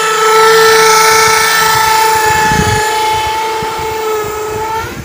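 A loud, steady pitched tone with many overtones, like a long horn blast, held unbroken until it bends up slightly and cuts off near the end.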